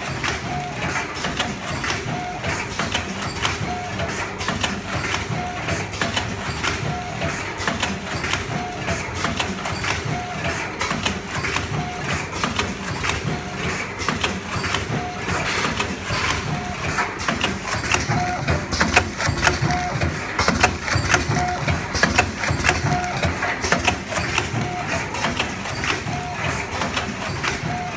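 Triangular nylon-mesh tea bag packing machine running: a dense clatter of rapid mechanical clicks, with a short tone repeating about every second and a half.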